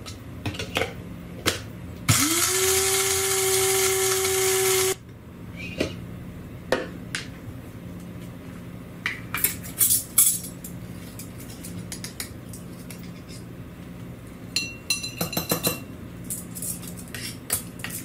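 Electric blade coffee grinder grinding beans to a medium grind: the motor spins up about two seconds in, holds a steady pitch for about three seconds and cuts off abruptly. Afterwards come scattered clicks and clinks of the lid and a metal spoon against the stainless steel grinding cup, one ringing briefly.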